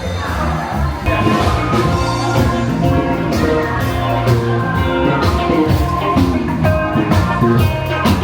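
Background music with a steady beat: drums and pitched instruments.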